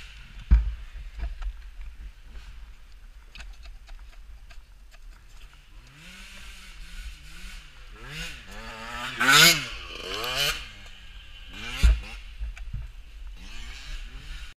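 Dirt bike engine revving up and down in several surges from about six to eleven seconds in, over a steady rumble of wind on the camera. Sharp knocks come about half a second in and again near twelve seconds.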